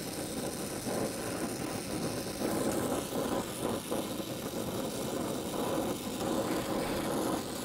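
Gas welding torch flame burning steadily, a continuous rushing noise, as it heats thin steel antennae for bending.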